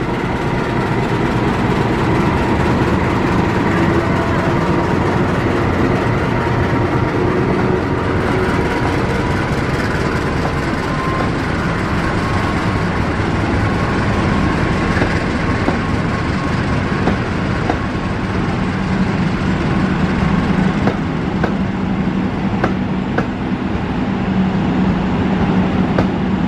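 CC 206 diesel-electric locomotive running past with its train: a steady engine drone over wheel and rail noise. The engine's low note grows stronger in the second half.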